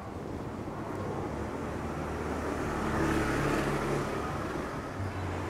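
Street traffic with a motor vehicle passing close by: its engine hum grows louder to a peak about three seconds in, then fades.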